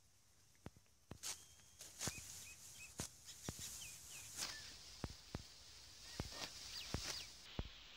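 Rice stalks being cut by hand with a sickle: a series of short, crisp snaps at uneven spacing, about one or two a second. A bird chirps a few times in the background.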